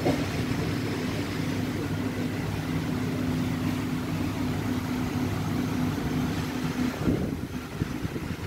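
Steady low mechanical hum with a droning tone. The drone breaks off about seven seconds in, with some irregular low rumbling.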